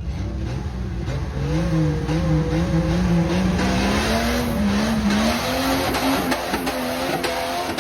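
Jeep Cherokee engine working under load as it crawls over rocks, its pitch wavering and slowly rising. Scattered clicks and knocks join in during the second half.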